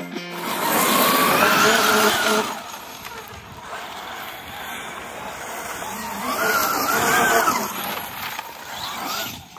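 Brushless electric motor of a Losi 5T RC truck whining as the truck speeds up and backs off, twice: once about a second in and again around six to seven seconds in. Between and under the whines there is a rough noise from the tyres on gravel.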